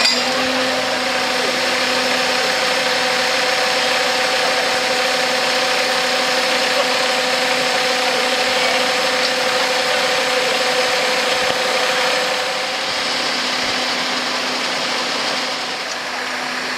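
Fire service aerial platform truck's engine running steadily: an even hum over a loud hiss. About thirteen seconds in the upper part of the hum fades and the sound drops slightly in level.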